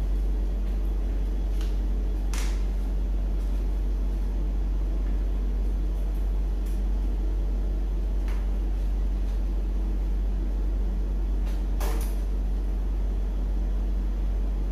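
Steady low hum under a few light clicks from a red-handled hand tool at the bike's packing, the sharpest one near the end.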